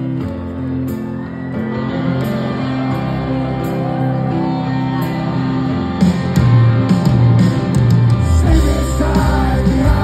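Live rock band playing through a concert PA, recorded from the crowd: held chords on electric guitar and keys, then the full band comes in louder, with drums and bass, about six seconds in.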